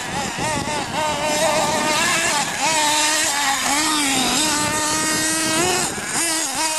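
Small engine of a Hong Nor Jammin CRT radio-controlled truggy revving up and down with the throttle, its pitch rising and falling again and again as the truck drives and climbs.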